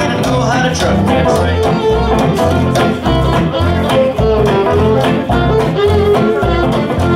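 Live swing band playing an instrumental passage without vocals: upright bass walking about two notes a second under acoustic guitar chords on the beat, with fiddle and a melodic lead line on top.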